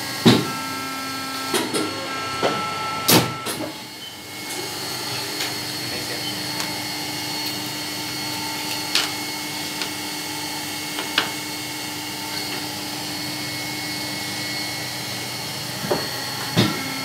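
Nagai NCD-6 paper guillotine cutter running with a steady motor hum, broken by a few sharp knocks, the loudest about three seconds in.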